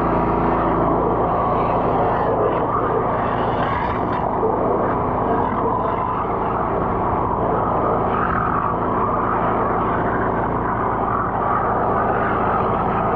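Drain jetter's engine and pump running steadily at a constant speed, jetting out a root-blocked drain.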